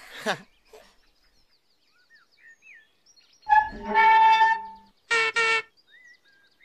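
A toy scooter squeaking: one long squeal about three and a half seconds in, then two short squeaks just after. Birds chirp softly before it.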